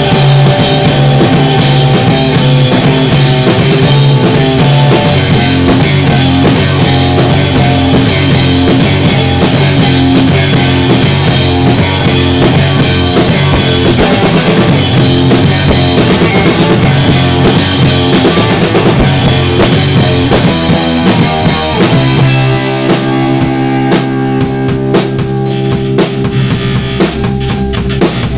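Loud rock band playing live, drum kit and guitar together. About 22 seconds in the cymbals drop out and the music thins to held low notes under separate drum hits.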